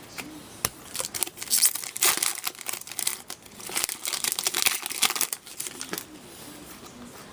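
Crinkling packaging with dense crackles and rustles while trading cards are handled, busiest through the middle and dying down near the end.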